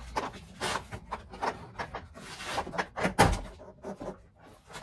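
Irregular plastic clicks and knocks from hands working on a car's inner door trim panel, with a short rustle a little past two seconds in and one louder knock about three seconds in.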